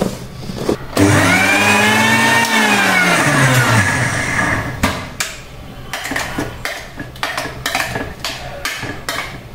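Electric mixer grinder grinding lentils dry, without water. The motor starts about a second in and runs for about three seconds, its pitch rising and then falling as it winds down. A run of clicks and knocks follows as the steel jar and its lid are handled and the lid is opened.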